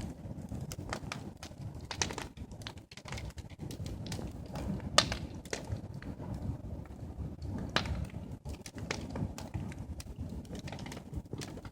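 Wood and sawdust fire crackling, with irregular sharp pops, the loudest about five seconds in, over a steady low rush.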